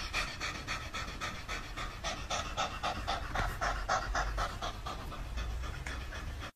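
An orange tabby cat panting open-mouthed: fast, even breaths at about five a second.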